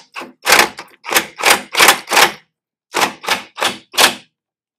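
Impact gun on a rusty sway bar bracket bolt, hammering in short trigger blips: about eleven quick bursts with a brief pause about two and a half seconds in, the gun being eased on the bolt rather than run flat out.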